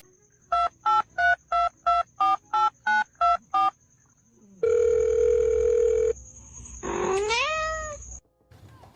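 Telephone keypad beeps dialing about ten digits in quick, even succession, followed by a steady tone lasting about a second and a half. Near the end, a cat gives one meow that rises in pitch.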